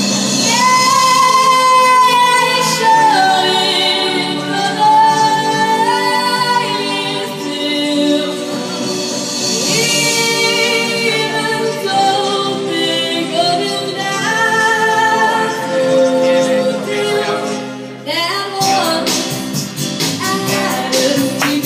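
A woman singing a song with instrumental backing, holding and bending long notes. About eighteen seconds in, a quick, steady beat of sharp percussion strikes comes in under the voice.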